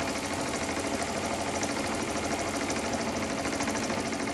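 Cyldon toy steam engine with a semi-rotative valve running steadily on live steam, its rapid, even exhaust beat going without a break; it is running smoothly now that the boiler has stopped priming.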